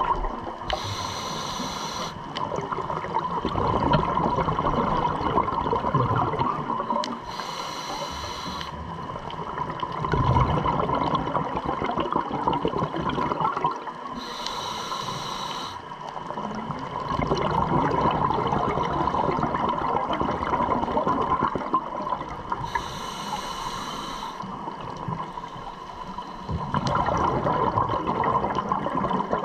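Scuba diver breathing underwater through a regulator: four short hissing inhales, about seven seconds apart, each followed by a long bubbling exhale.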